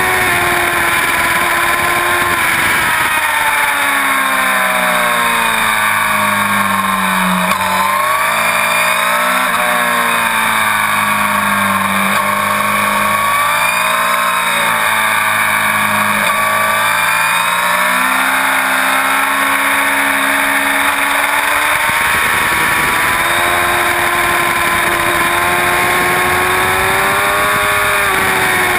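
Inline-four sport motorcycle engine heard from an onboard camera, its pitch rising and falling repeatedly as the throttle and gears change, under a heavy rush of wind over the microphone.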